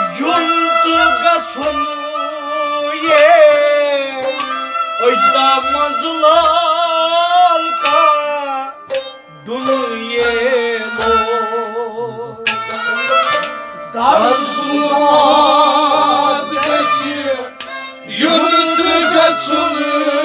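Men singing a Kashmiri Sufi kalam in turn, one voice carrying the melody and another taking over after a short break about twelve seconds in. Occasional low thumps come from a pot drum played by hand.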